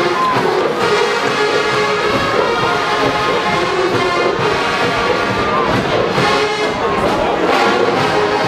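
Marching band brass section playing loud sustained chords over a steady drum beat.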